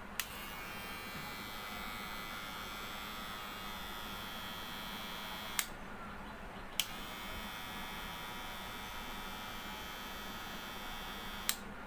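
Kemei KM-3090 electric hair clipper switched on with a click and running with a steady buzzing whine. It is switched off about five and a half seconds in, switched back on about a second later, and switched off again near the end.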